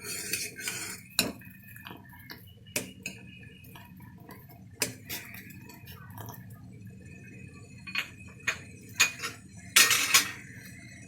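Metal kitchen pots and utensils clinking and knocking now and then, about a dozen sharp strikes at uneven intervals, over a low steady rumble. A short, louder scraping rattle comes near the end.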